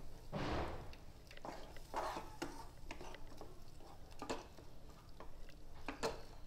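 A spatula stirring milk and corn in a nonstick wok. It makes wet scraping strokes against the pan about every two seconds, with small clicks and knocks between them.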